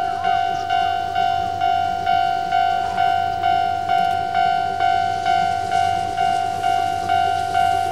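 Railway level-crossing warning bell ringing, an evenly repeated ding about twice a second, as a train approaches.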